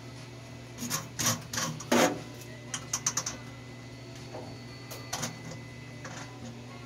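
Scattered metal clicks and clinks of small hardware and hand tools being handled while nuts are fitted onto bolts through a truck firewall. There is a quick run of small ticks about three seconds in and a few more clicks around five seconds, over a steady low hum.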